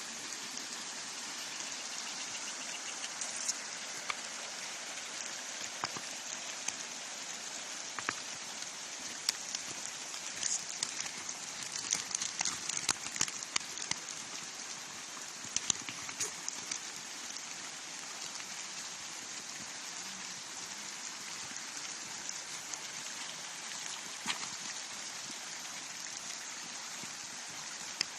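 River water flowing in a steady rush, with scattered small splashes and drips ticking over it, busiest in the middle.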